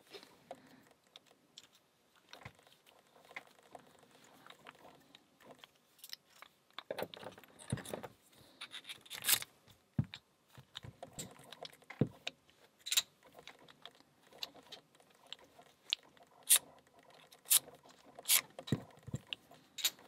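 Urban Alps Stealth Key Anchor Lås Grade 4 padlock being handled with its key: scattered small metallic clicks, taps and scrapes, with several sharper single clicks in the second half.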